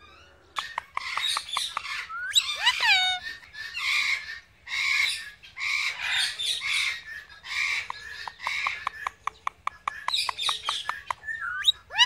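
Rose-ringed parakeet calling rapidly: harsh, raspy bursts about once a second, mixed with whistled notes sliding down in pitch and quick sharp clicks, starting about half a second in.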